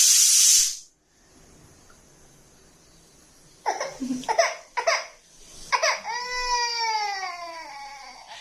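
Pressure cooker whistle letting off steam with a loud hiss that cuts off sharply within the first second. A nine-month-old baby then gives a few short whimpers and breaks into a long cry that falls in pitch.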